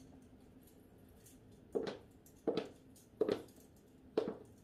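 Footsteps of shoes on a hard floor, four sharp steps about three quarters of a second apart, starting a little under two seconds in.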